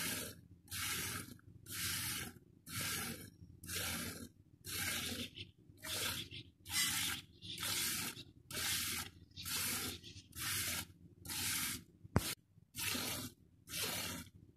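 Buffalo being milked by hand: streams of milk hissing into a steel pot in a steady rhythm, about one squirt a second. A single sharp click about twelve seconds in.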